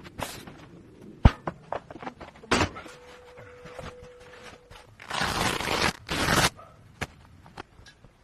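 A run of clicks and knocks, one sharp and loud about a second in, with a few longer scraping or rustling noises, the loudest two close together near the end.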